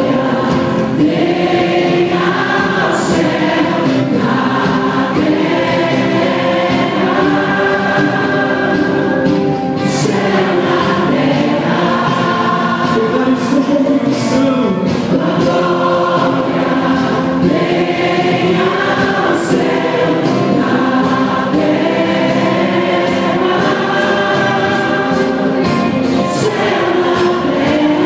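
Choir singing a slow worship song in held phrases, with instrumental accompaniment.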